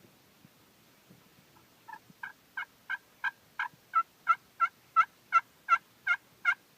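A series of turkey yelps, about fourteen short notes at roughly three a second, growing louder through the run.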